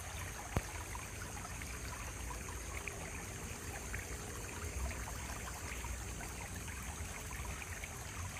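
Shallow rocky stream trickling steadily, with one sharp click about half a second in.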